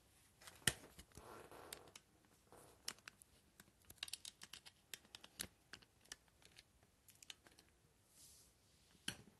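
Faint scattered clicks and taps of a smartphone being handled and repositioned as its camera is switched, with a louder knock about two-thirds of a second in and another near the end.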